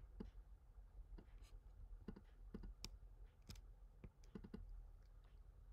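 Faint, irregular clicking of a computer mouse and keyboard, some clicks in quick pairs, over a low background hum.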